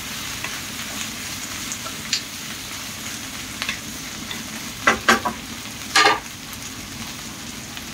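Mixed vegetables (pumpkin, bitter melon, okra, green beans and freshly added eggplant) sizzling in hot oil in a pan while being stirred, with a few sharp scrapes of the utensil against the pan around five and six seconds in.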